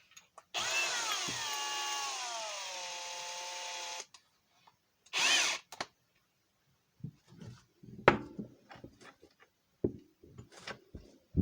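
Power drill drilling into a Master Lock No. 5 padlock: a whine lasting about three and a half seconds whose pitch drops as the bit bites. It is followed by a short second burst of the drill, then scattered clicks and knocks.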